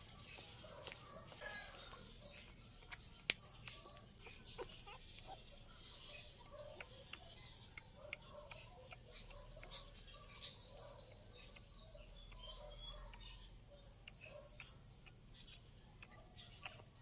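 Faint backyard ambience: chickens clucking and short high bird chirps in repeated groups of three or four over a steady high insect drone. Scattered soft clicks come from the 12-day-old puppy suckling at the feeding bottle's nipple, the sharpest about three seconds in.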